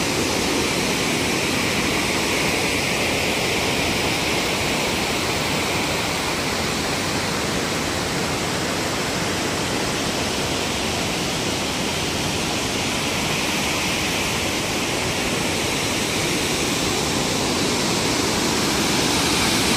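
Water rushing steadily over the Lechfall, a stepped weir on the Lech river: a constant, even roar of falling water.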